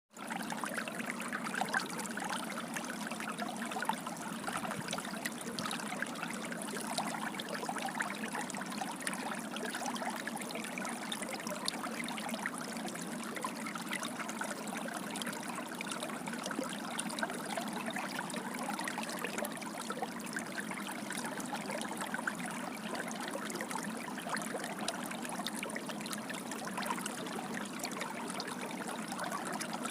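Water flowing and splashing steadily, like a gushing stream, with a constant babble and fine splashes.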